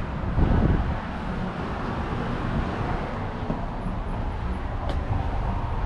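Steady road traffic noise from passing cars, with a brief louder low rush about half a second in.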